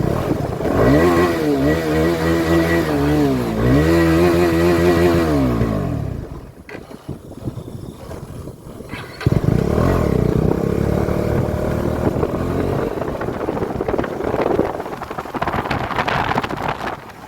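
KTM 250 Adventure's single-cylinder engine and exhaust being revved, the pitch rising and falling twice over the first six seconds. After a short quieter spell it comes back suddenly about nine seconds in and runs on steadily, its pitch slowly rising.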